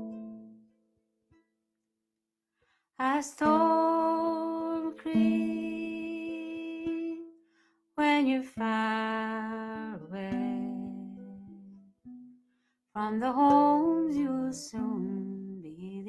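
A woman singing the slow opening phrases of an Irish emigration ballad to strummed ukulele chords. An intro chord fades out first, then about two seconds of silence, then three long sung phrases with short breaks between them.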